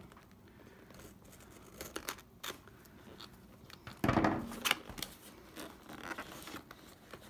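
Scissors cutting through the sticker seal on a cardboard box, with a few short sharp snips, then cardboard being handled and rustling as the box is pulled open, with a louder knock about four seconds in.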